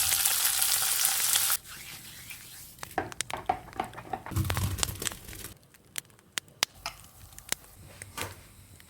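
Food sizzling loudly in a hot pan, cut off abruptly about a second and a half in. Scattered kitchen clicks and clatter follow, with a low rumble around the middle.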